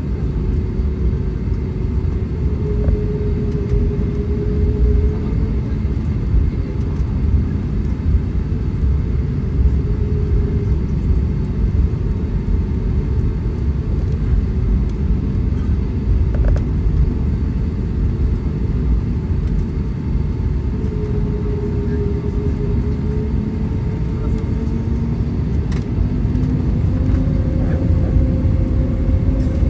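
Cabin noise of an Airbus A320neo taxiing, heard from a seat over the wing: a steady low rumble of the engines at taxi power and the wheels on the pavement, with faint humming engine tones that shift in pitch now and then and rise a little near the end.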